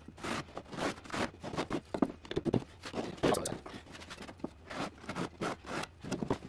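Pencil scratching across particleboard as a wooden-block scribe is slid around the edge of the disc to mark a line: a run of short, irregular scrapes and rubs.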